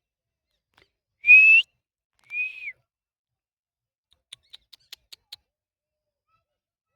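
Two clear whistled notes, the first rising slightly and the second arching and falling away, followed about two seconds later by six short, sharp chirps in just over a second.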